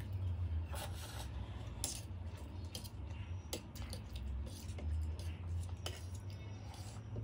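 Metal fork scraping and clinking against a stainless steel plate while noodles are gathered up, in scattered sharp clicks and scrapes over a low steady hum.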